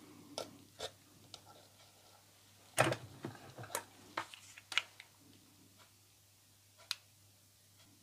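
Dried flower stems and the small wooden birdhouse being handled: a few light clicks and taps, with a short cluster of rustling and tapping about three to five seconds in and one more click near the end.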